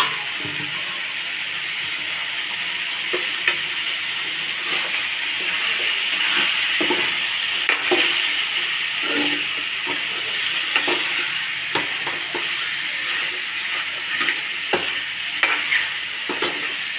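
Raw chicken pieces sizzling in an aluminium kadai as a steel ladle stirs them. The ladle scrapes and knocks against the pan every second or so over a steady frying hiss.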